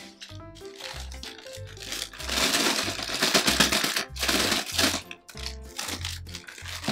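A thin clear plastic bag crinkling as it is handled, loudest from about two seconds in until about five seconds in, over background music.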